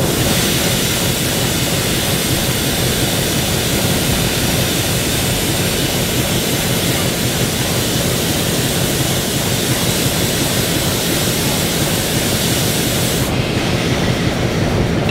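ALCO S4 and S7 diesel switcher locomotives idling, a steady low engine rumble, with a loud hiss over it that cuts off about 13 seconds in.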